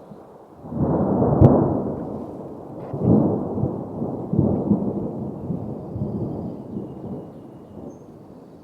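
Thunder rumbling, with a sharp crack about one and a half seconds in. The rolling rumbles swell again twice and then die away.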